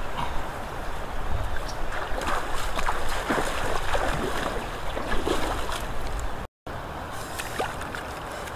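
Outdoor riverbank ambience: a steady rush of wind on the microphone and flowing river water, with irregular rustling and crackling of dry grass from about two to six seconds in. The sound drops out for a moment near the end.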